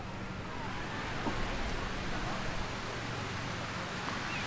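Steady rushing noise of surf on a sandy beach, swelling a little about a second in, with faint distant voices.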